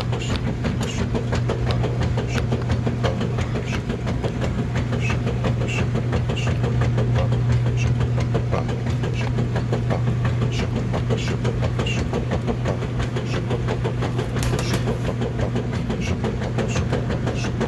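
Washing machine running: a steady low hum with a continual rattle of clicks and knocks.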